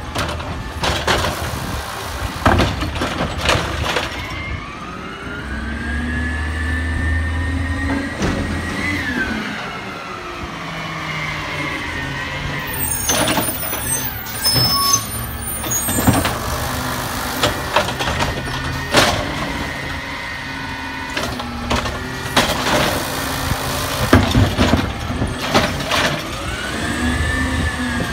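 Peterbilt 320 automated side-loader garbage truck with a compressed-natural-gas engine at work: the engine revs with a rising and falling hydraulic whine as the arm cycles. Sharp knocks and clatter come from the arm and carts, and air brakes hiss about halfway through.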